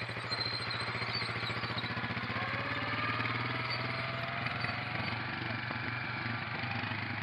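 ATV engines running steadily at low trail speed over rock, with a slow rise in engine pitch partway through.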